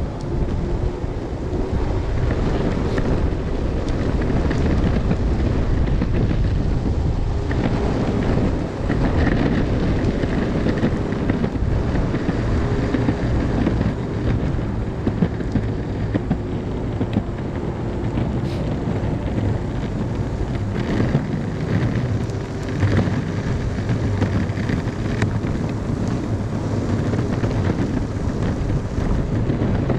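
Strong wind buffeting the microphone over the low rumble of electric skateboard wheels rolling on pavement, with a faint steady hum and a few brief knocks.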